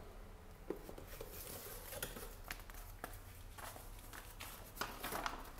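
Faint rustling of plastic wrapping and light scattered taps as a plastic-bagged kettle power base and paper manuals are handled, over a low steady hum.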